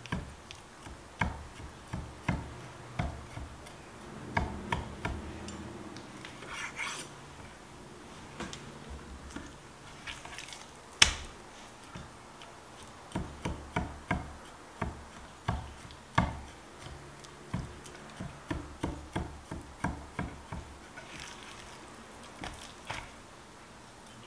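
Food-prep sounds on a kitchen board: a string of sharp taps and knocks from a knife or utensil, some in quick runs of about two a second, with a few brief scrapes and one much louder knock about eleven seconds in.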